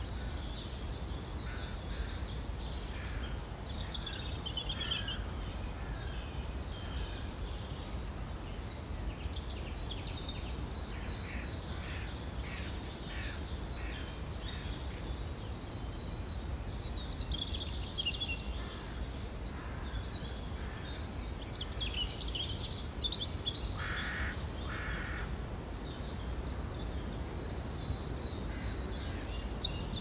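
Spring songbird chorus: several small birds singing and chirping at once, over a steady low rumble. Two shorter, lower calls sound about a second apart late on.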